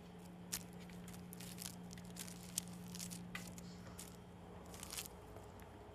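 Faint, irregular scratchy rustles and light clicks as a kitten paws at a paper strip dangling on a cord, with a steady low hum behind that stops about five seconds in.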